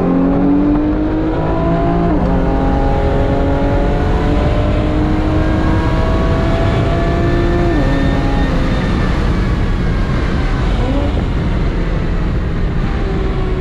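Infiniti Q50 Red Sport's twin-turbo 3.0-litre V6 at full throttle, heard from inside the cabin. The engine pitch climbs steadily through each gear, with upshifts about two seconds in and about eight seconds in.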